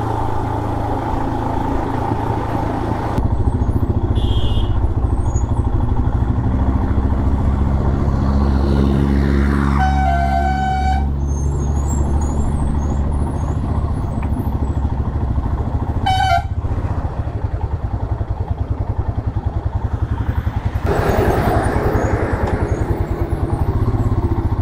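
Motorcycle engine running with a steady low rumble at road speed. A vehicle horn honks for about a second roughly ten seconds in, and gives a shorter toot about six seconds later.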